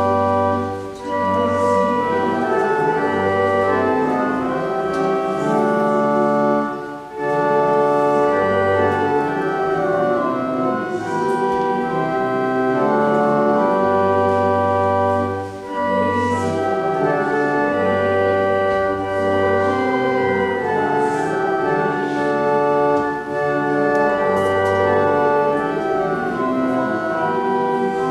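Church organ playing a slow instrumental postlude: held chords over a deep pedal bass line, with brief breaks between phrases every several seconds.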